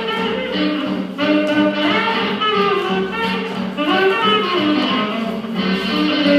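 Swing jazz music with horns playing a melody over a steady accompaniment.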